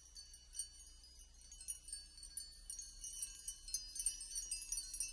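Tinkling chimes, many high bell-like notes ringing over one another and slowly growing louder, as a music track begins.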